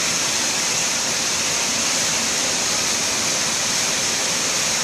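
Steady, even rushing noise with a strong high hiss and no separate events.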